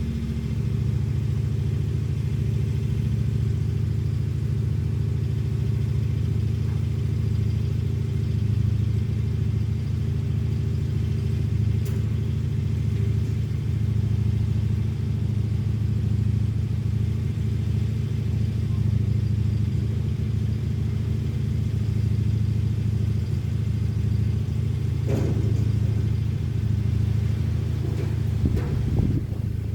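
Lawn mower engine running steadily, a constant low drone, with a brief knock about 25 seconds in and some unsteadiness near the end.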